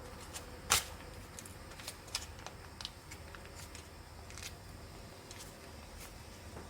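Scattered light clicks and taps of small objects being handled, the loudest one near the start, over a faint steady low hum.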